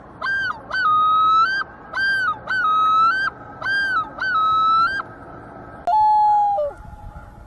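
Common loon calling: a loud series of about six repeated rising-and-falling notes, the pattern of the loon's yodel, then a lower held note about six seconds in.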